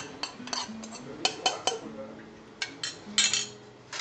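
Metal spoon clinking and scraping against a small pan of dry-roasted spice powder as the pan is taken off the burner: a string of short sharp clicks, with a louder, longer scrape about three seconds in.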